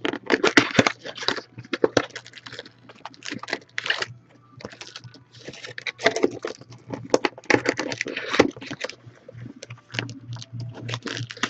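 Plastic shrink wrap crinkling and tearing in irregular bursts as a card box is unwrapped by hand, then the cardboard box flap is pulled open. A steady low hum runs underneath.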